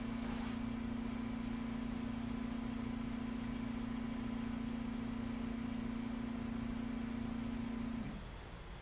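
HIAC 8011+ liquid particle counter running during a sample run: a steady low hum that stops about eight seconds in as the run ends.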